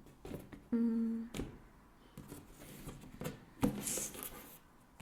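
A deck of tarot cards being shuffled by hand: sharp taps and a brief papery rustle near the four-second mark. About a second in, a short hummed note.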